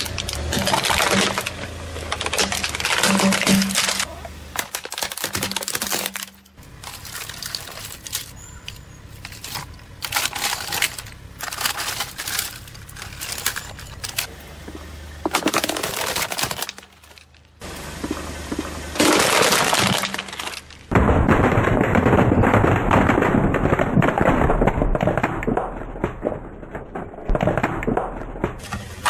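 Plastic remote-control toy cars cracking, snapping and crunching under a car tyre, in a series of separate bursts with sudden cuts between them, then a long unbroken stretch of crunching over the last eight seconds or so.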